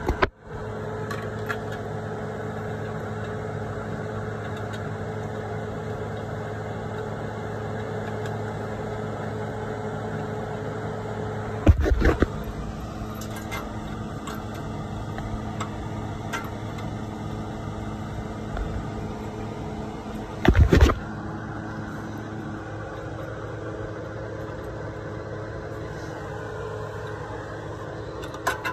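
A steady machine hum, with two loud clunks about twelve and twenty-one seconds in from hand work on the engine while new spark plugs are fitted.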